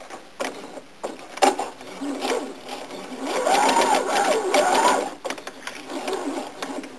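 Electric domestic sewing machine stitching through a small fabric scrap at its slow speed setting, starting about a second and a half in; the motor's pitch rises and falls as it runs, over the quick steady rattle of the needle.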